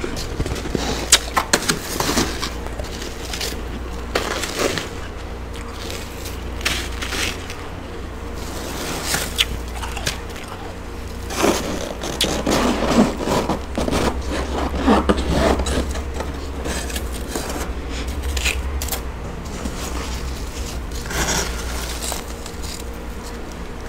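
Thick built-up frost in a chest freezer being scraped and pried loose with a scraper and a gloved hand, giving irregular crunching, scratching strokes. The strokes come thickest about halfway through.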